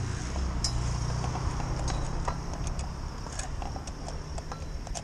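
Motorboat engine running with a steady low drone as the boat approaches along the river, with scattered light clicks over it.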